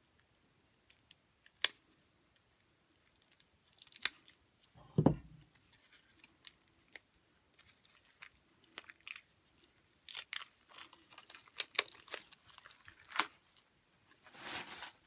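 Plastic shrink-wrap being cut with a knife and torn off a deck of game cards: scattered crinkles and sharp clicks, a dull thump about five seconds in, and a dense run of crinkling and tearing later on.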